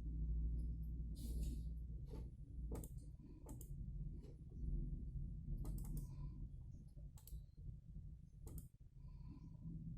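Scattered sharp clicks of a computer mouse, about seven or eight spread irregularly, over a steady low hum.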